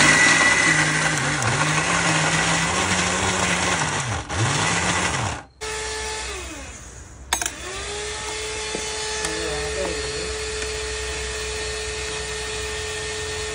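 Electric mixer grinder grinding ginger and garlic pieces in its steel jar: a loud motor whir whose speed dips and rises several times, then cuts off suddenly about five seconds in. A quieter, steady hum with a single click follows.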